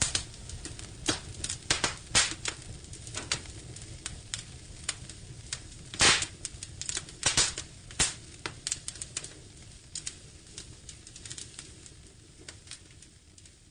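Firewood burning in a fireplace, crackling with irregular sharp pops and snaps over a low hiss. The loudest pop comes about six seconds in, and the crackling fades out toward the end.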